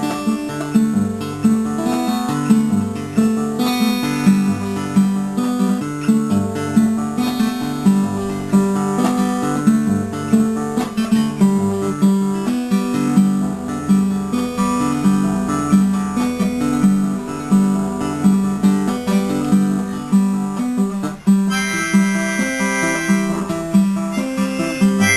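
Acoustic guitar played in a steady rhythmic pattern with bass notes. Near the end a harmonica joins in with held notes over the guitar.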